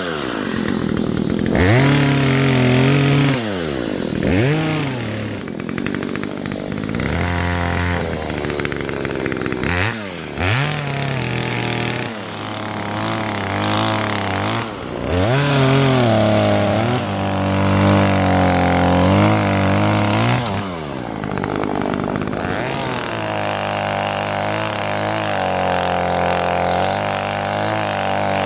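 Chainsaw engine revving up and dropping back again and again, its pitch sagging and recovering as it cuts through the wood of a fallen tree.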